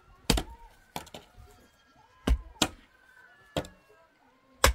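Sharp knocks of blows struck with a hand tool, about seven of them at uneven intervals, with the strongest about a third of a second in and near the end.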